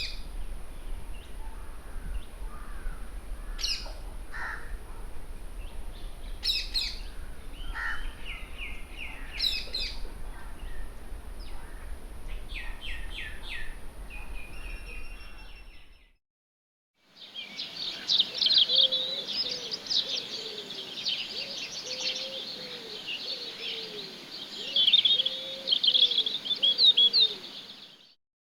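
Forest bird calls in two separate nature recordings. First, scattered chirps and short trills over a low rumble and a thin steady high tone; after a second's silence, a second recording of dense bird chirping with lower, sliding calls beneath.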